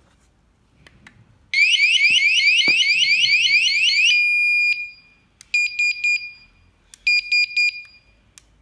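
Wireless doorbell receiver in alarm mode sounding an electronic siren: a loud, shrill rising sweep repeated about four times a second for two and a half seconds. It then changes to a steady high beep and cuts off, followed by two quick runs of short beeps at the same pitch.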